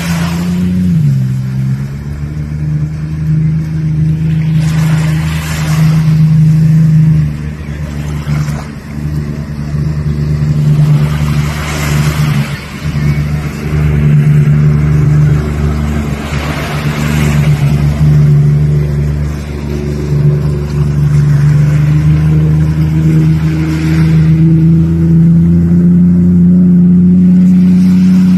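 Jet ski engine running at speed, a steady droning hum that drops in pitch about a second in and climbs slightly near the end, with rushes of water spray and wind noise surging every several seconds.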